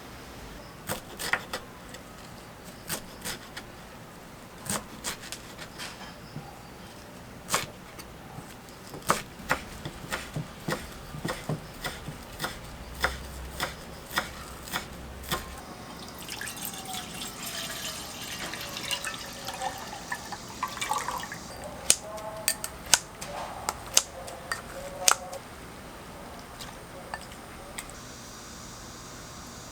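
Home kitchen cooking sounds: a long run of light clicks and taps of utensils and dishes, with a stretch of liquid sound through the middle.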